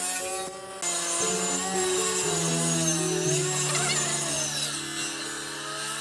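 Woodworking saw cutting through a pine board, the machine's high whine sagging in pitch under load around the middle, over background music of held notes.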